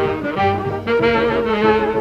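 Band music led by brass instruments, playing a tune of held notes that change pitch every half second or so.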